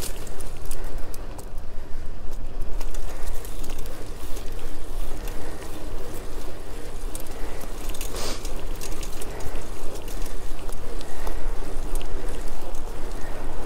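Wind buffeting a GoPro's microphone while riding a bicycle, a steady rumble mixed with road and tyre noise, with a brief sharp burst about eight seconds in.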